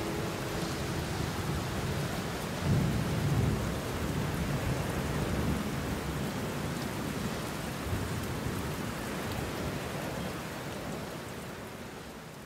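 Steady rain with a low rumble of thunder about three seconds in; the rain slowly fades out near the end.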